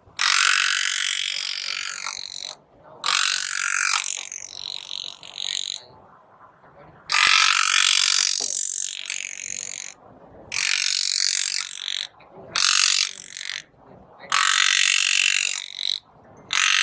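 Pneumatic graver (air-driven engraving hammer handpiece) running in bursts of one to three seconds: a rapid hissing rattle that starts and stops abruptly about seven times.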